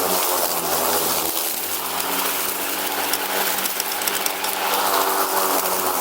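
Riding lawn mower engine running steadily as the mower moves, with a constant rushing noise over the engine note.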